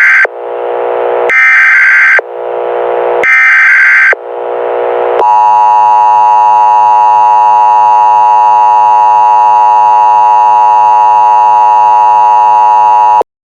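Emergency Alert System tones. First come short bursts of data tones, the SAME header, each trailing off into hiss. Then the steady two-tone attention signal sounds for about eight seconds and cuts off suddenly, announcing the emergency broadcast.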